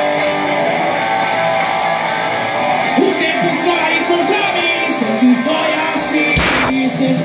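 Live rock band playing loudly: electric guitars ring out held chords, then a voice starts singing about three seconds in. There is a loud crash near the end.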